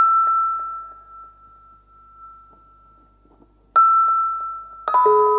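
Struck bell-like chime notes ringing out with long decays: one high note, the same note again nearly four seconds later, then about a second after that a chord with two lower notes joining in.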